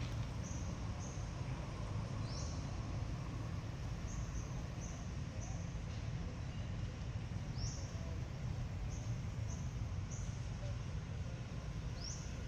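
Short high chirps, each a quick upward sweep, repeating irregularly about ten times over a steady low rumble.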